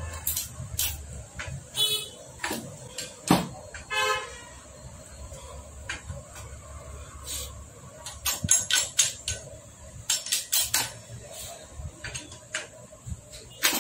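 Metal tools clinking and tapping against a Hero Splendor Plus motorcycle engine's crankcase during assembly, in irregular clusters that come thickest about eight to eleven seconds in. Short vehicle horn toots sound about two and four seconds in.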